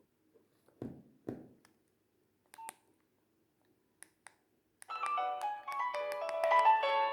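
Nokia 2610 mobile phone: two soft handling knocks and a few keypad clicks, one with a short beep, then about five seconds in a ringtone starts playing from the phone's loudspeaker, a bright electronic melody with several notes sounding at once.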